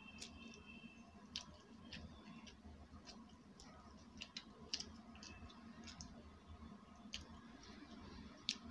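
Steel fork clicking and scraping against a stainless steel plate as food is cut and picked up: about eight short, sharp clicks scattered through a quiet background.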